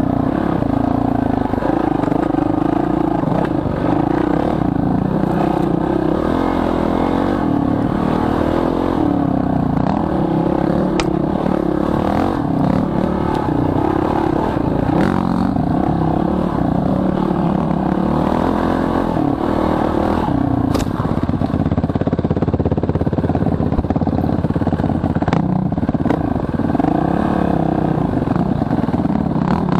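Dirt bike engine heard from the rider's own camera on the bike, its revs rising and falling continually as he rides a rough trail. A few sharp knocks and some clatter come through as the bike goes over bumps.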